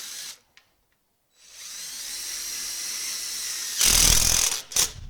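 Power drill-driver driving small Phillips screws into a screen latch: a brief run at the start, then a steady whine for about two seconds, ending in a louder, harsher burst near the end.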